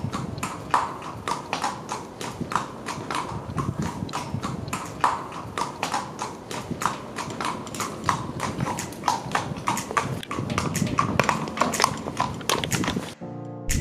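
Horse hooves clip-clopping at a walk on a street: a steady, uneven run of sharp clicks, about three or four a second, that stops just before the end.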